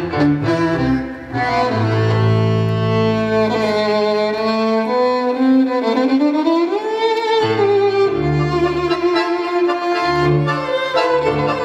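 Live tango music from a small ensemble: a violin plays a long sustained melody that slides up in pitch about six seconds in, over held double-bass notes and piano.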